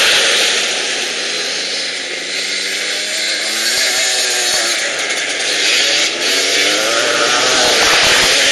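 Suzuki RM250 two-stroke single-cylinder motocross engine in a Yamaha Tri-Z quad, revving up and down repeatedly as the quad is ridden.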